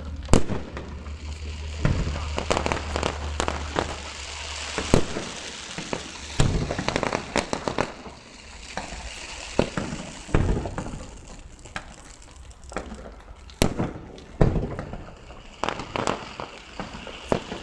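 Fireworks display: aerial shells bursting in irregular bangs every second or two, with crackling between them.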